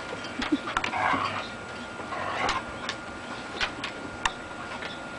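Dogs' claws clicking and tapping irregularly on wooden deck boards, with brief scuffling, as a Siberian husky and a beagle puppy wrestle.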